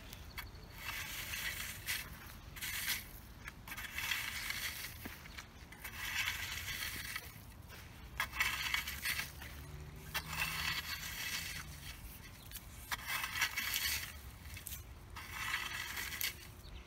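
Metal garden rake scraping through dry, gritty soil in repeated strokes, about one every second or two.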